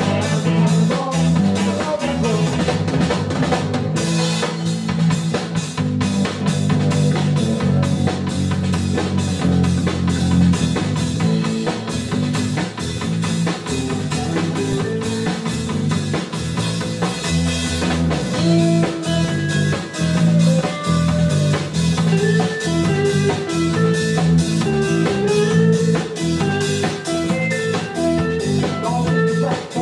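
Live band playing an instrumental passage: a steady drum-kit beat under electric bass and guitar, with a melodic lead line over it in the second half.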